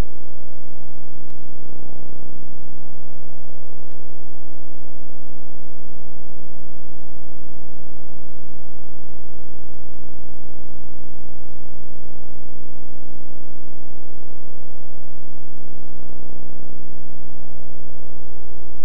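Loud, steady electrical hum-buzz with many evenly spaced overtones, unchanging the whole time, with no game sound or speech over it.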